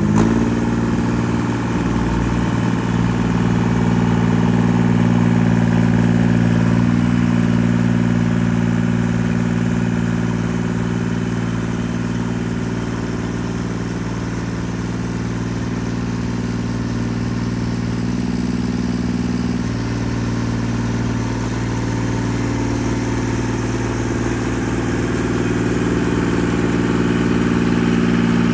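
Carlton SP7015 TRX tracked stump grinder's engine running steadily, with small shifts in pitch, as the machine is driven on its tracks toward the stump.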